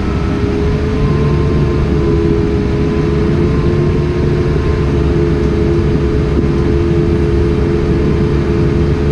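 Case Puma tractor running steadily, heard from the cab: an even engine drone with a steady whine over it.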